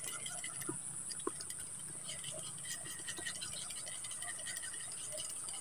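Fishing reel being cranked on a lure retrieve: a faint, fast rattle of small clicks, over a steady high hiss.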